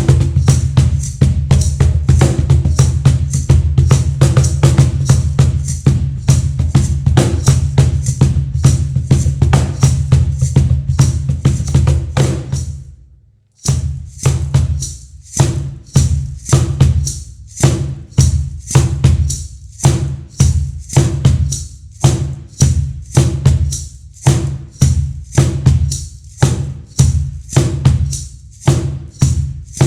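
Meinl cajon played by hand in a steady groove of deep bass strokes and crisp, snare-like slaps. The playing fades out briefly just past the middle, then starts again with a sparser, more accented beat.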